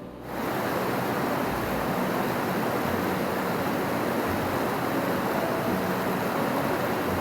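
Waterfall rushing: a steady, even noise of falling water, starting and stopping abruptly.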